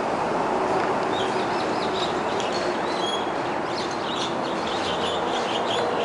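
Small birds chirping many times over a steady rushing noise that fills the background.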